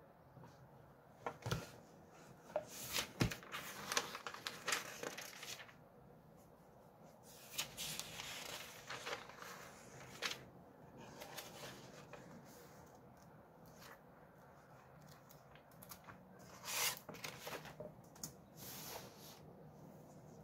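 Paper pages of a thick hardcover book being turned and leafed through by hand, in irregular bursts of rustling. There are two soft knocks, about one and a half and three seconds in.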